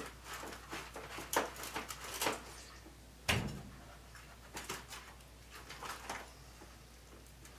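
Knife carving into a whole smoked turkey: scattered small clicks and scrapes of the blade through the skin and against the pan. One sharper knock comes about three seconds in.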